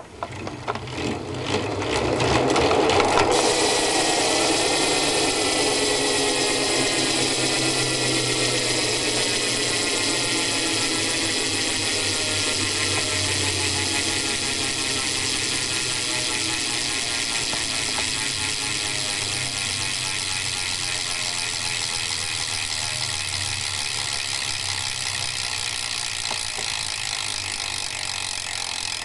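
Stock hub of a 2011 Subrosa Tiro BMX bike clicking as the wheel spins freely. Separate clicks for the first few seconds run into a fast, even buzz that slowly drops in pitch and fades as the wheel winds down.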